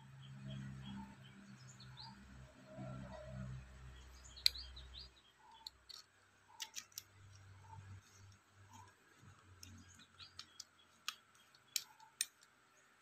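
Handling noise from a metal LVLP spray gun and its red-ringed air cap in cloth work gloves. Low rustling and rubbing at first, then a scatter of sharp metallic clicks and taps as the air cap is fitted onto the nozzle, the loudest about four seconds in and a pair near the end.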